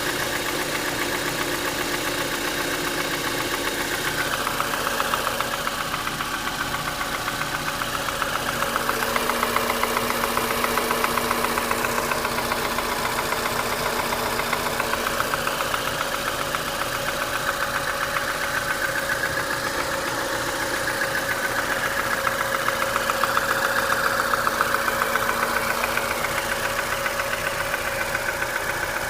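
Renault Mégane II engine running steadily with a fast, even knock that appeared after the timing belt was replaced; the owner does not know its cause.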